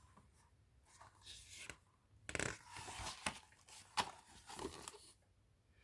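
Faint rustling and crinkling of paper pages being handled and turned in a picture book, with a sharp tap about four seconds in.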